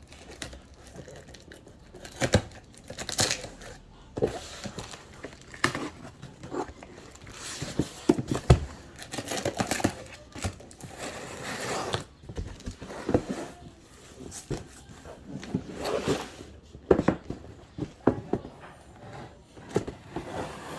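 Packaging being opened by hand: irregular crinkling and tearing of the wrapping, with sharp clicks and knocks scattered throughout.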